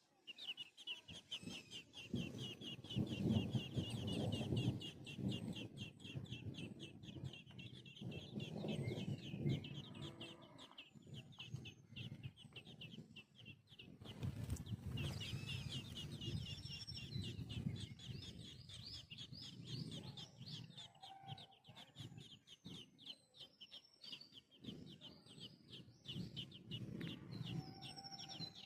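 Birds calling: repeated low clucking calls, in spells, over a rapid high trill that keeps going throughout.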